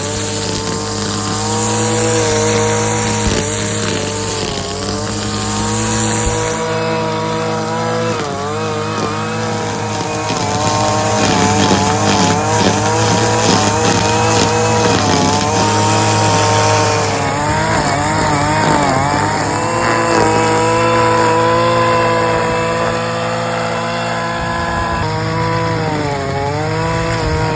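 Gas string trimmer (weed eater) engine running while cutting overgrowth, its pitch rising and dipping as the throttle is worked, with bursts of high hiss from the cutting line.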